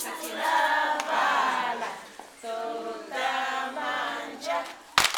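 A group of voices singing unaccompanied in held notes, with a couple of sharp claps near the end.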